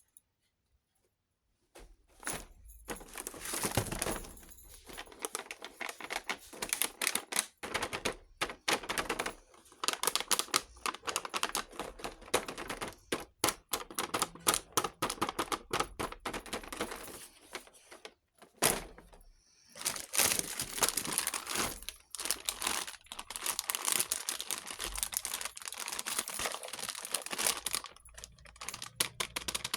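Miniature toy kitchen set being unboxed: small plastic and metal pieces and their packaging handled, giving a dense run of small clicks and rustling that starts about two seconds in, with a short pause about two-thirds of the way through.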